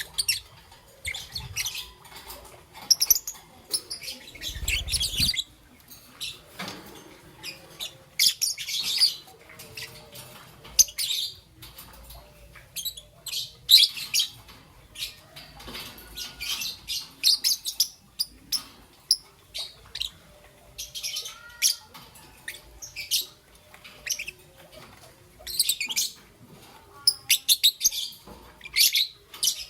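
Young peach-faced lovebird chirping: a steady stream of short, high-pitched chirps coming in quick irregular clusters.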